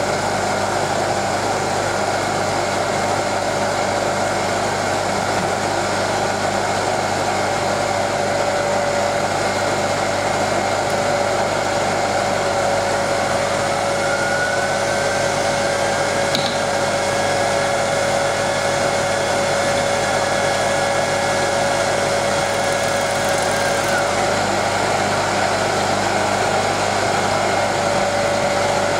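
A 230 V induction motor running steadily at about 2800 rpm, spinning a neodymium-magnet disc, with a steady hum and whine. About halfway through, a second, higher whine rises and holds for roughly ten seconds, then drops away: the DC generator with its aluminium disc is being spun up by magnetic drag from the magnet disc.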